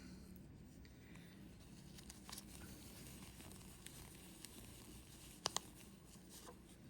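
Near silence: faint room tone with a few small, light clicks of handling, the sharpest a quick double tick about five and a half seconds in.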